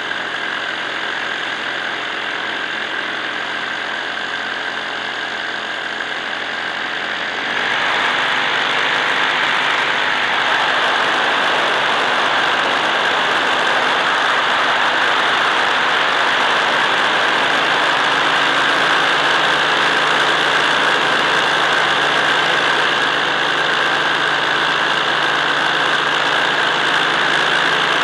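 Drone's electric motors and propellers running with a steady whine, stepping up louder and higher a little over seven seconds in as the motors speed up.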